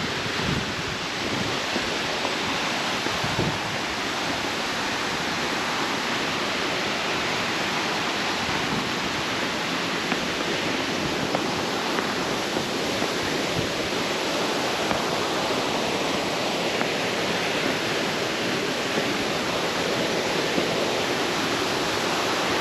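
Sumampan Waterfall's water rushing: a steady, unbroken noise that holds level throughout.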